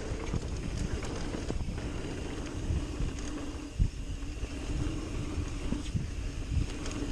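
Mountain bike rolling fast down a packed-dirt trail, picked up by a handlebar-mounted camera: tyre rumble and wind on the microphone, a few thumps as the bike hits bumps, and a steady whir that grows stronger about halfway through.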